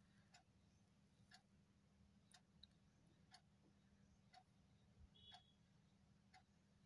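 Near silence with faint, evenly spaced ticks about once a second, over a low steady hum.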